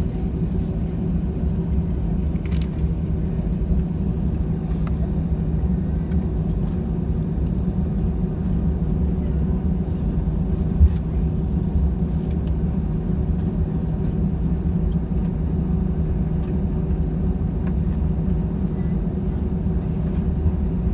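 Jet airliner's engines running with a steady low hum and rumble, heard from inside the passenger cabin, with a few faint clicks and one brief knock about halfway through.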